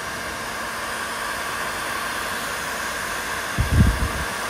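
Heat gun blowing steadily into a chainsaw crankcase bearing pocket, heating the case to expand it so the crank bearing can be tapped out. A brief low bump comes about three and a half seconds in.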